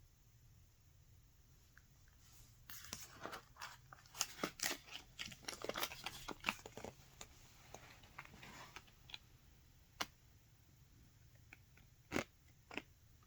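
Paper and card being handled: a run of crinkling and crackling lasting about six seconds, then a few single taps or clicks near the end.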